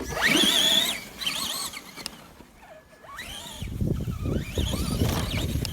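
RC car's electric motor whining up sharply in pitch and back down in several short bursts of throttle. About three and a half seconds in, a rough rumble of the tyres running over rough ground takes over.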